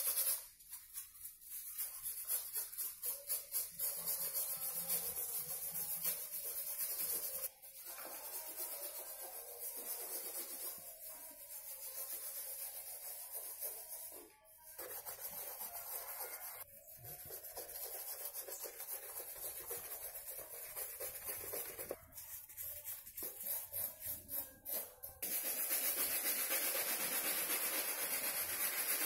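Sneakers being scrubbed with brushes, a toothbrush among them, on wet soapy shoe fabric and soles: quick back-and-forth brushing strokes, pausing briefly a few times and louder near the end.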